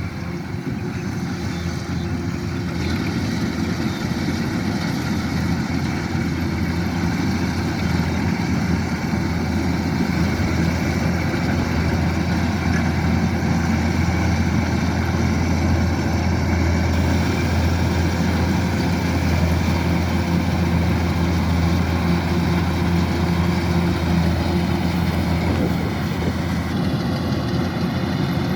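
Kubota DC-105X combine harvester's diesel engine running steadily, a continuous low drone that builds a little over the first few seconds.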